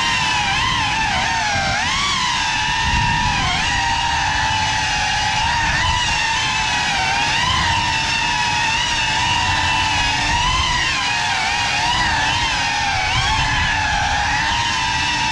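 FPV cinewhoop quadcopter (GEPRC Cinelog 35 on 6S) flying, its brushless motors and ducted props giving a high whine whose pitch keeps rising and falling with the throttle, over a low rumble of prop wash.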